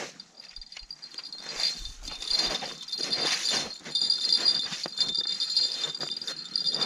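Small bells on an ice-fishing rod jingling and rattling almost nonstop from about a second in, as the rod bends and shakes with a hooked walleye being fought and reeled up through the ice.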